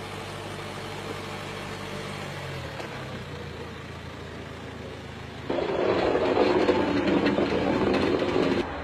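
Land Rover Discovery Sport's engine running steadily while it tows train wagons along rails. About five and a half seconds in, a much louder, rougher noise sets in, lasts about three seconds and cuts off abruptly.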